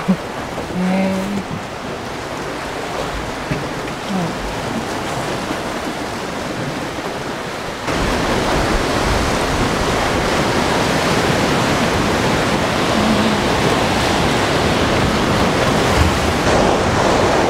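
Sea waves breaking and washing over a rocky shore: a steady rushing noise that abruptly gets louder about eight seconds in.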